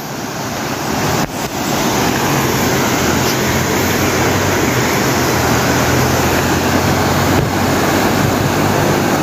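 Steady rushing of a shallow, rocky river's rapids. Under it, the low engine hum of an approaching vehicle grows from a few seconds in toward the end.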